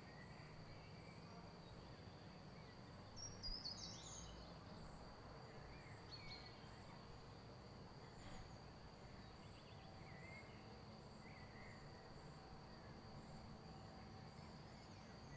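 Near silence: faint outdoor ambience with a few distant bird chirps, the loudest about three and a half seconds in, over a faint steady high tone.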